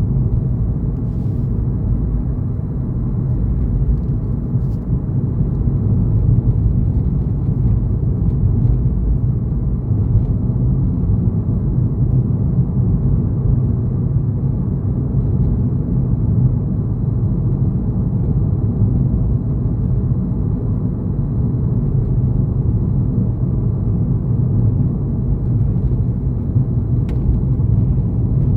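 Car driving at a steady speed: a continuous low rumble of road and engine noise, muffled as picked up by a dashcam, with a few faint ticks.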